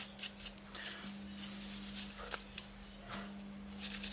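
Short scratchy strokes and rubbing as dust is cleaned by hand off a laptop's clogged cooling fan and grille, with a steady low hum underneath.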